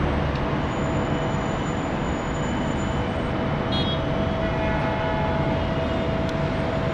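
Steady city traffic rumble with a constant mechanical hum running through it.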